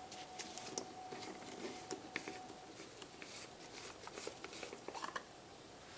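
Faint, scattered light clicks and rustling of hands handling small parts and a container on a workbench, with a faint steady hum through the first couple of seconds.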